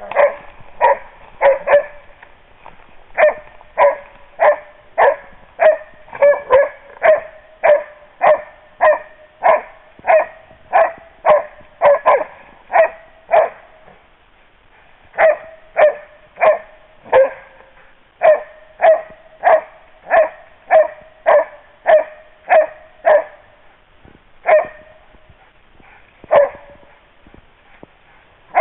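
Hunting dog bay-barking at a badger it holds at bay in its den: a steady run of short barks, about one and a half a second, with two brief breaks, one about halfway through and one near the end.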